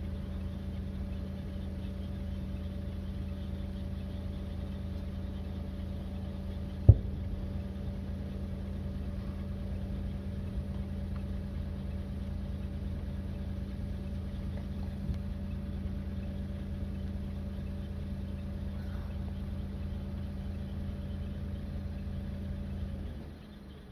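An engine idling with a steady hum, which cuts off near the end as its pitch sinks away. A single sharp click about seven seconds in is the loudest sound.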